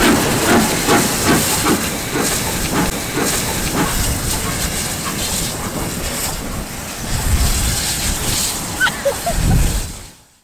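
Steam locomotive venting steam with a loud, steady hiss, pulsing rhythmically for the first few seconds and fading out at the end.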